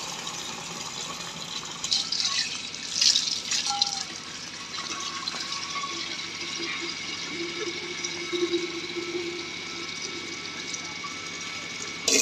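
Water running from a wall tap into a metal pot, filling it. The flow is a steady hiss, briefly louder a few times between about two and four seconds in.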